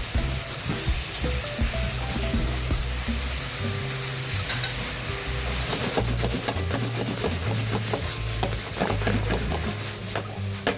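Eggplant and meat sizzling in a hot pan over a high flame while being stirred, the utensil scraping and knocking against the pan. The clicks come thicker in the second half.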